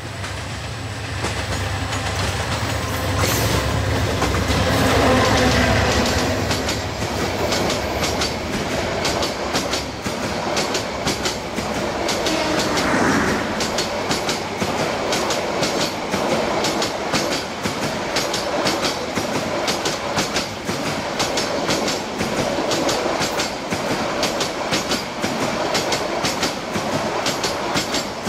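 Diesel locomotive passing close by, its engine loudest a few seconds in. It is followed by a long string of new PT INKA passenger coaches rushing past with a fast, steady clickety-clack of wheels over the rail joints.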